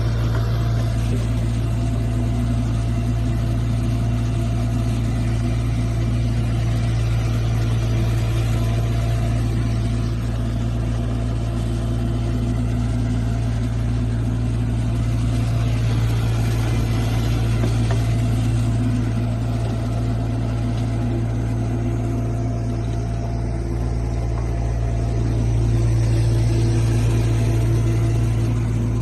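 Mini excavator's Kubota diesel engine running steadily with a low, even hum, growing a little louder near the end.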